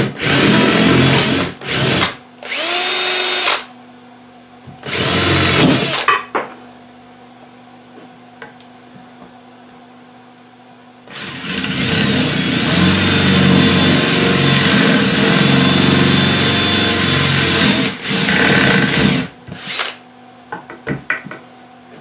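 Electric drill drilling holes: several short trigger bursts in the first six seconds, the motor whine rising as it spins up, then one long run of about seven seconds and a final short burst.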